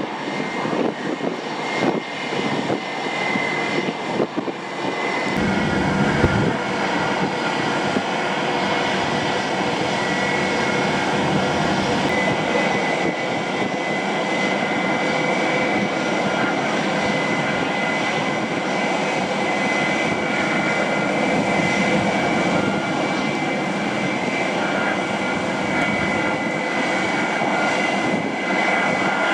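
Airliner engines running: a steady rush with a high whine. It swells after about five seconds and then holds, with a brief low rumble about six seconds in.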